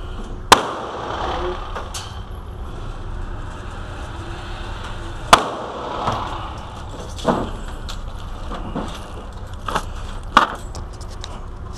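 Gunshots echoing in an indoor range. Two loud reports come about half a second in and about five seconds in, then several fainter shots, over a steady low ventilation hum.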